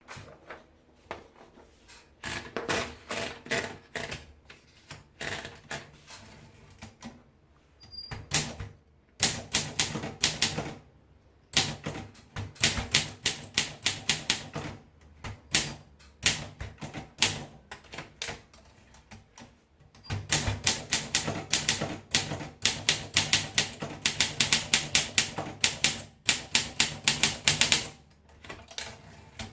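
Olympia SM2 manual portable typewriter being typed on: quick runs of key strikes in bursts of a few seconds, with short pauses between them.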